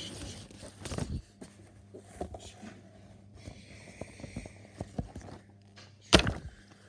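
Paper rustling and soft knocks of picture books being handled on a carpeted floor, with one sharp loud thump about six seconds in.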